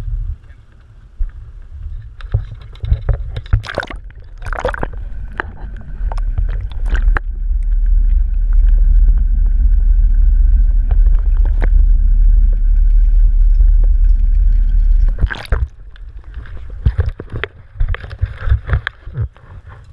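Crab pot being hauled up by hand aboard a small boat: knocks and clatter of rope and gear over a low rumble. Partway through, a loud muffled rumble as the camera is underwater, with a faint steady high whine.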